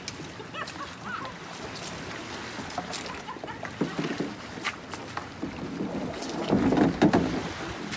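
Small waves washing over a pebble beach, with scattered clicks of stones. Near the end a louder scraping rush as a plastic sit-on-top kayak is pushed over the pebbles into the water.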